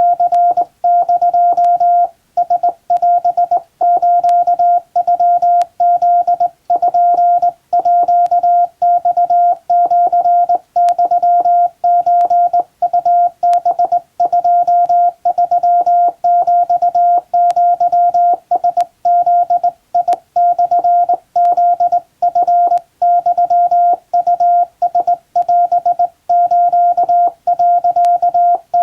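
Hand-sent Morse code from a telegraph key: a steady beep of about 700 Hz keyed on and off in dots and dashes at a brisk, even pace, with short pauses between groups.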